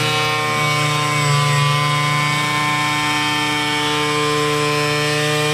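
Handheld electric angle grinder cutting through a sheet of laminate with a steady, high whine that swells slightly about a second in as the disc bites.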